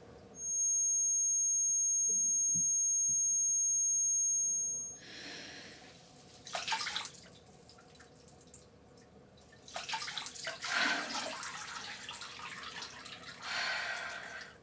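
A high, steady ringing tone, the film's sound effect for tinnitus ringing in the ear, holds for about four and a half seconds and then fades out. Quieter sounds like water follow, with a few short bursts.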